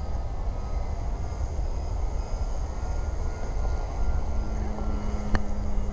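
Outdoor rumble like wind buffeting the microphone, with a steady low hum joining about four seconds in and a single sharp click near the end.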